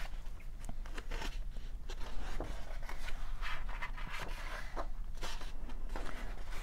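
Paper pages of a large illustrated book being turned and pressed flat by hand: irregular soft rustles and scrapes of paper, over a steady low hum.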